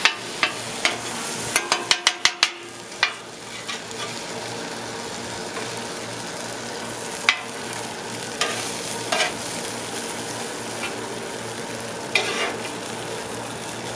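Sauced instant ramen noodles sizzling steadily on a hot Blackstone steel griddle. A metal spatula scrapes and taps against the griddle in a quick cluster in the first three seconds, with a few scattered clicks later.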